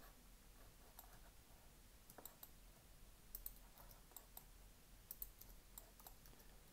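Faint, irregular clicking of a computer mouse and keyboard keys, a dozen or more light clicks scattered unevenly.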